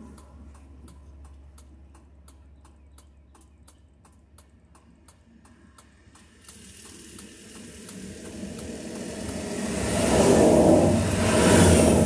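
Highway traffic passing, heard from inside a car parked on the shoulder. A steady low hum carries light ticking at about three ticks a second. From about halfway the noise rises to a rush that peaks twice near the end as a tractor-trailer and other vehicles go by.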